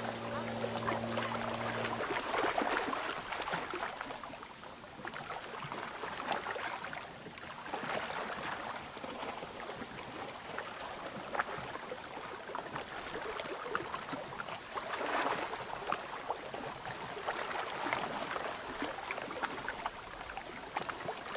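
Small waves lapping and splashing against shoreline rocks, swelling and easing every few seconds.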